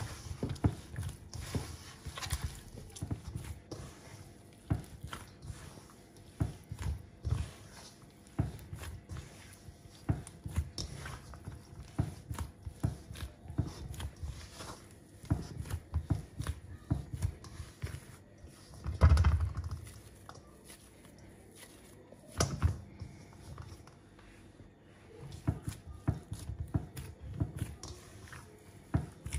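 Hands kneading a firm samosa pastry dough of plain flour, butter and water: irregular soft squishing and pressing thumps, with one louder thump about two-thirds of the way through.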